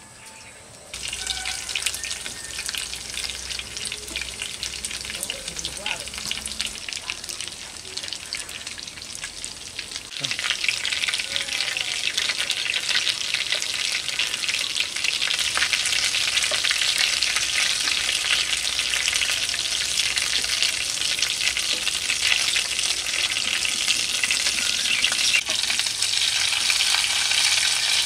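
Food frying in hot oil in a pan, a steady crackling sizzle that starts about a second in and gets louder about ten seconds in.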